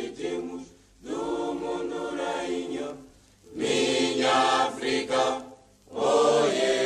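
A choir singing in held phrases of about two seconds each, with short breaks between the phrases.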